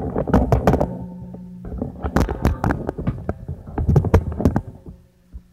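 Background music with a thumping beat, mixed with close knocks.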